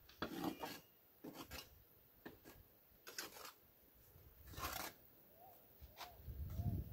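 Mason's trowel faintly scraping and tapping mortar on hollow clay bricks in short strokes, with a longer scrape about four and a half seconds in.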